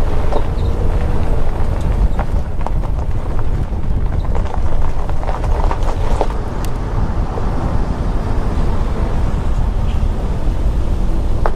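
Car driving over a gravel road, heard from a camera on the hood: a steady low rumble of tyres on loose stones, with scattered clicks of gravel striking the car.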